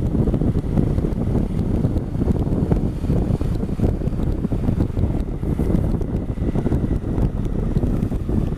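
Heavy wind rumble buffeting the microphone of a camera on a moving motorcycle, with the Honda Africa Twin CRF1000L's parallel-twin engine running steadily underneath.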